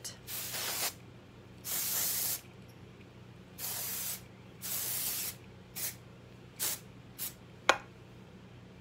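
Hair texture spray hissed onto the hair in repeated bursts: four longer sprays of about half a second to a second each, then four quick short puffs, the last one sharpest.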